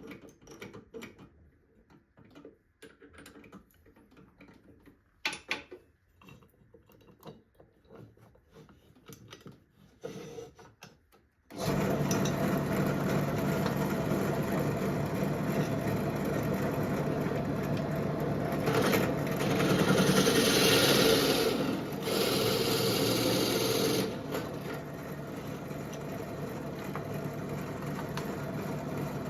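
Scattered light knocks and clicks of wooden discs being handled, then about twelve seconds in an electric drill starts and runs steadily, boring wooden branch slices with a 22 mm Forstner bit. For a few seconds past the middle the sound gets louder and harsher as the bit cuts, then drops back to the steady running of the motor.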